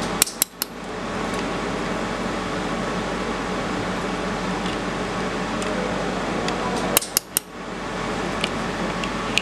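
Steady whirring of a machine cooling fan, broken by short sharp clicks: about three near the start and three more about seven seconds in.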